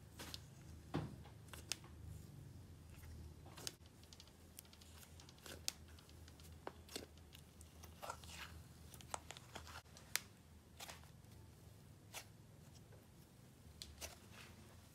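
Faint, irregular sticky clicks and crackles of fluffy slime being poked, pulled out of its tub and squished by hand.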